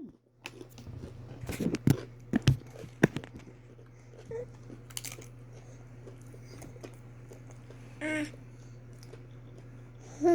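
Snack-eating sounds: sharp crunches and crinkles in the first few seconds, then scattered lighter ticks over a steady low hum. A brief voice sound comes twice, near the end.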